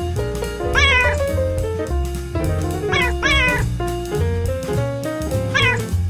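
Outro music with a bass line, and a cat meowing four times over it, each meow rising then falling in pitch.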